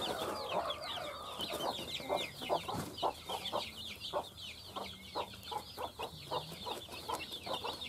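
Mother hen clucking in short repeated notes, about two a second, with a longer call right at the start, while her chicks peep without pause in high, quick falling chirps.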